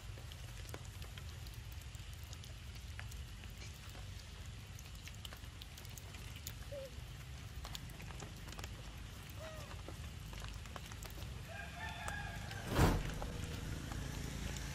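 A rooster crows near the end, over a steady low rumble and scattered small clicks. A single loud thump follows right after the crow.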